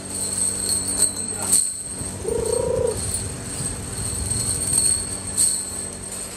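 Loose steel carriage bolts clinking and rattling against one another as hands rummage through a pile, over a steady machine hum and high whine. About two seconds in, a brief pitched sound lasts about half a second.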